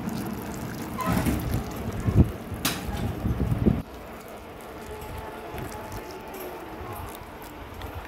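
Water pouring from a plastic watering can onto fresh potting soil, a steady quiet pour in the second half. In the first few seconds the can is handled with a few loud knocks and bumps.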